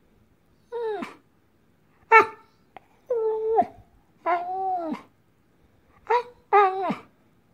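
Entlebucher Mountain Dog "talking": six pitched vocal calls in a row, some short and some drawn out to about half a second, most dropping in pitch at the end. The loudest is a short one about two seconds in.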